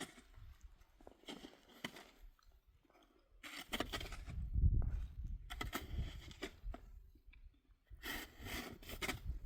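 Irregular crunching and scraping in several separate bouts, with low thuds, the loudest about halfway through.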